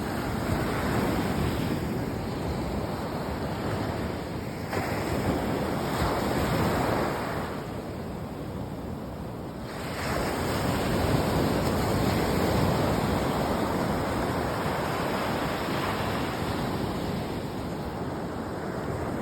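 Sea surf: waves breaking and washing in a continuous rush, surging louder about five seconds in and again about ten seconds in, with wind on the microphone.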